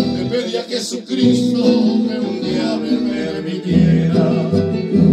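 Live music: a guitar strummed and plucked in accompaniment, with a man singing a Spanish ballad into a microphone.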